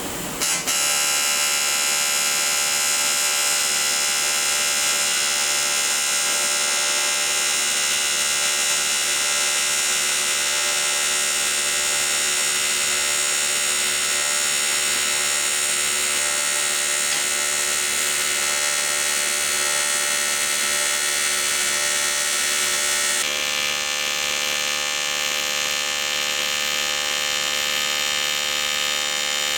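AC TIG welding arc on 10 mm thick aluminium plate at about 250 amps: a steady buzzing hum that starts about half a second in, its tone shifting slightly a little over 20 seconds in.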